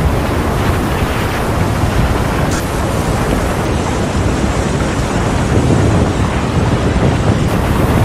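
Muddy flash-flood torrent rushing past in a loud, steady roar of churning water, with wind buffeting the microphone.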